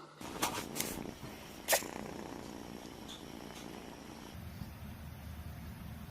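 A pet sneezing: a few quick small snuffs in the first second, then one sharp sneeze a little under two seconds in. A low steady rumble follows from about four seconds in.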